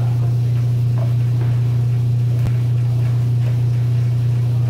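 A loud, steady low machine hum, the running of bakery equipment, with a few faint knocks of a spoon stirring batter in a plastic bowl.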